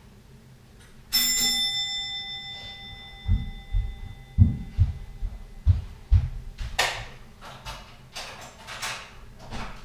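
A single bell-like ding chimes about a second in and fades over roughly two seconds. Heavy footsteps then thud across the floor for a few seconds, followed by several sharp rustling and knocking noises.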